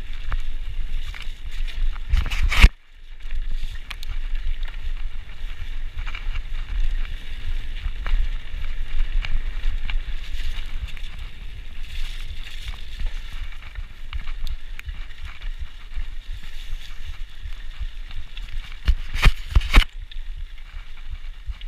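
Wind buffeting the microphone and the tyres of a Cube Stereo mountain bike rumbling down a dirt trail at speed, with frequent small rattles and clicks from the bike. A loud knock about two and a half seconds in, and a few heavier knocks near the end.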